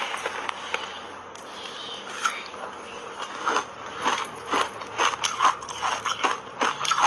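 Fingernails tapping and scraping on a frozen block of matcha-powdered ice: sharp clicks and scratches, sparse at first and coming about two a second in the second half.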